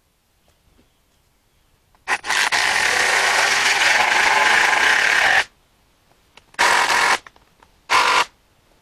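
Handheld power drill running in one long run of about three seconds, then two short bursts, each starting and stopping sharply.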